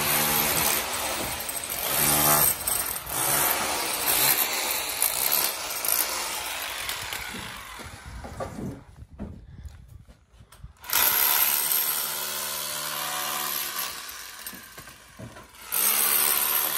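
A power tool running loudly with a steady motor note, cutting out about nine seconds in and starting up again about two seconds later.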